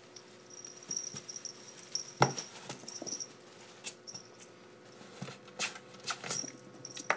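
Ferrets play-fighting and scrambling in a cardboard box of shredded-paper bedding. The paper rustles and the box takes scattered knocks, the loudest about two seconds in. Brief high squeaks come in short runs early on and near the end.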